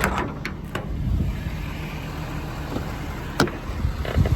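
Ford F450's 6.7 Power Stroke diesel idling steadily, with a few clicks and knocks over it, a sharp click about three and a half seconds in.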